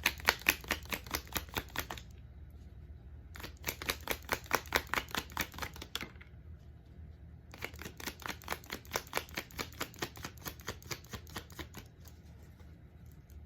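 A deck of tarot cards being shuffled by hand in three spells, each a quick run of about eight light card taps a second.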